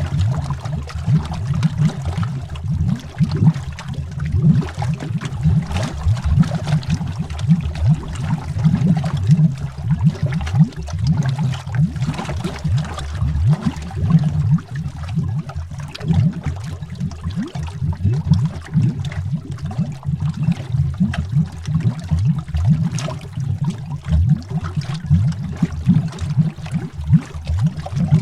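Underwater bubbles: a continuous dense stream of low bubbling and gurgling, many small bubbles popping and rising.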